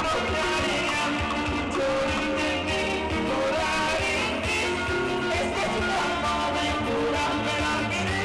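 Live band music: a group on an outdoor stage playing amplified guitars and drums at a steady dance beat, with a singer.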